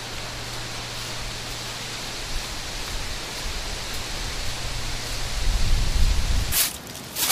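Steady rushing hiss of outdoor ambience with a low rumble. Near the end come two sharp swishes of a bush-clover broom (싸리비) sweeping fallen leaves.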